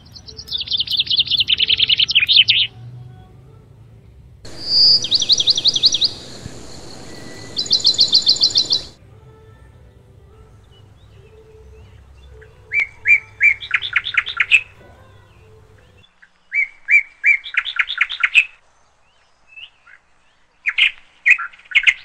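Lovebird chirping in rapid trains of sharp, high notes, several per second, coming in about seven bursts of one to two seconds with pauses between.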